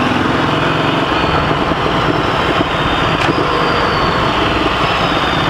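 Ducati Scrambler 800's air-cooled L-twin engine running through its exhaust as the motorcycle is ridden, with one short crack about three seconds in.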